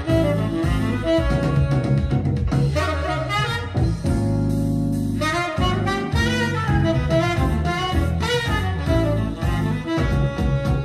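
Jazz recording with saxophone over a bass line, played back through a pair of valve power amplifiers and floor-standing loudspeakers; one long held note comes about four seconds in.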